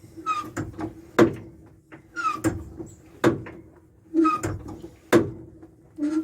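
Clutch pedal of a Gaz 66 truck being pumped by hand to prime and bleed the clutch master cylinder. It repeats a short squeak and a hard clunk about every two seconds, over a faint steady hum.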